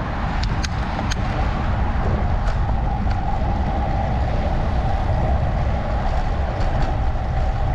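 Road traffic noise: motor vehicles, a heavy one among them, running past in a steady, unbroken rumble.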